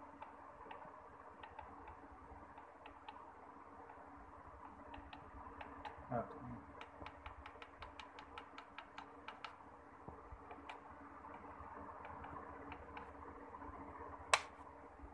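Faint clicking as a finger presses the buttons on a Singer 141G-20CEA sewing machine's motor control panel, with a quick run of presses at about three or four a second in the middle. A single sharp, louder click near the end as the panel's rocker power switch is flipped off.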